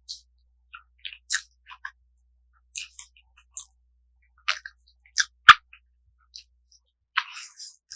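Close-miked mukbang eating sounds of someone chewing pakbet: scattered wet, squishy chewing and smacking noises, with a sharp loud click about five and a half seconds in.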